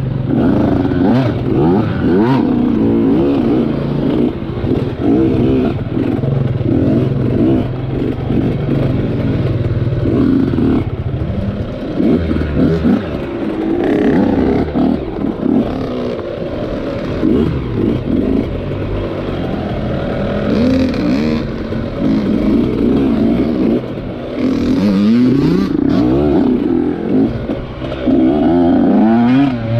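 Dirt bike engine heard from onboard, revving up and falling back again and again as the bike is ridden around a motocross track, with rattling and knocks from the bike over the bumps.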